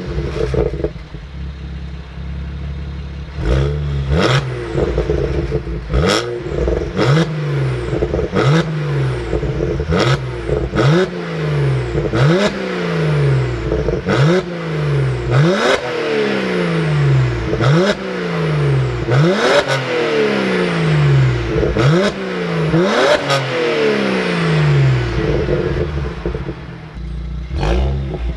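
BMW 1M's tuned 3.0-litre twin-turbo straight-six (about 425 hp) idling, then revved in quick throttle blips about once a second, each rising sharply and falling back, with a sharp crack on each blip. It returns to idle near the end.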